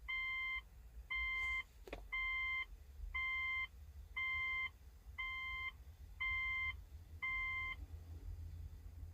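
Electronic beeping, one even half-second beep every second, eight in a row, each a clear high tone.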